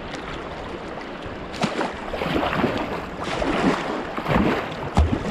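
Moving river water with a kayak paddling through it: a steady rush at first, then from about a second and a half in a run of irregular splashes and gurgles from paddle strokes and choppy water.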